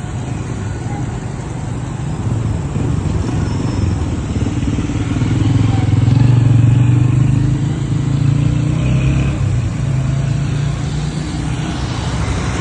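Road traffic: a motor vehicle's engine rumbling steadily, growing louder about halfway through and then easing off a little.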